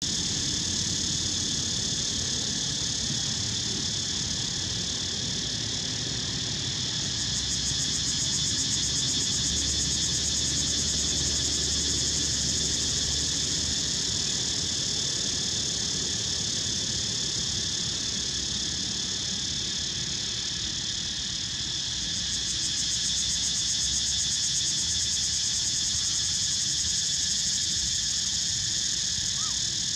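Dense chorus of insects buzzing steadily at a high pitch, swelling louder twice, about a quarter of the way in and again past two-thirds, over a low background rumble.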